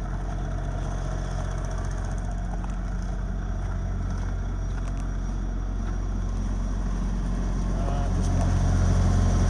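Car engine running steadily with a low hum, growing louder about eight seconds in.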